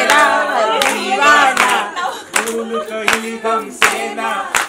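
People singing a song together, with hand claps at uneven intervals through it.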